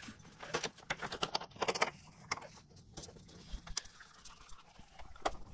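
Light, irregular metal clicks and ticks of a 4 mm Allen wrench turning out the bolts of a motorcycle's plastic lower fairing, with a short rattle a little under two seconds in.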